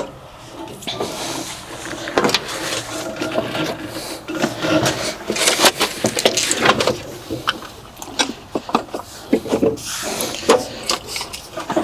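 Irregular knocks, rubbing and clatter of things being handled, with no engine running.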